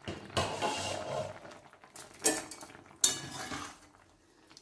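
A steel spatula scraping and knocking against a metal cooking pan while stirring a stew of vegetables, with two sharp clinks about a second apart midway.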